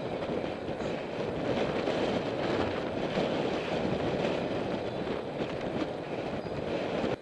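Steady rush of wind on the microphone and tyre noise from a bicycle riding along a paved path, with no speech.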